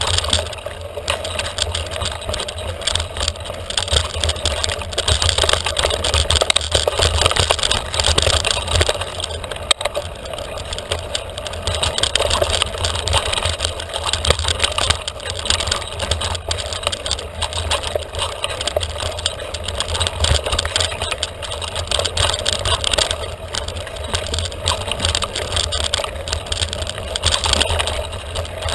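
Continuous riding noise from a mountain bike going along a dirt trail: a deep rumble of wind on the microphone, with the tyres and the bike rattling over the ground.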